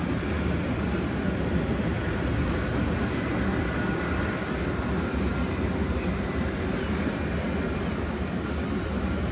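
Steady low rumble of a distant container freight train rolling through the town.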